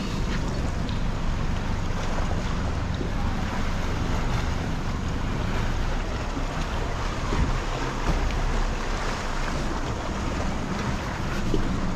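Motorboat engine running steadily as the boat moves through the water, with wind buffeting the microphone and water rushing along the hull.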